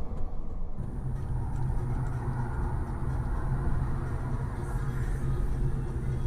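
Steady engine and road noise of a car driving, a continuous low rumble. The sound changes about a second in and then holds even.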